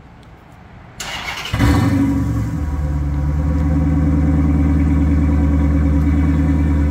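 2014 Dodge Challenger R/T's 5.7-litre Hemi V8 starting with its mufflers deleted: the starter cranks about a second in, the engine catches with a loud flare and then settles into a steady idle.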